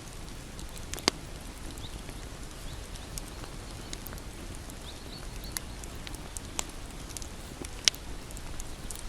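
Bonfire burning with a steady low rush and scattered sharp crackles and pops of the wood, the loudest about a second in and near the end.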